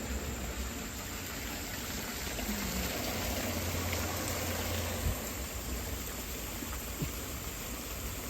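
Steady rush of flowing water from the Reedy River's falls, with a low rumble swelling in the middle and two light knocks about five and seven seconds in.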